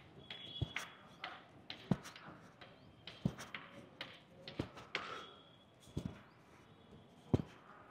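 Steel outdoor pull-up bar frame knocking once with each pull-up rep, six sharp knocks a little more than a second apart.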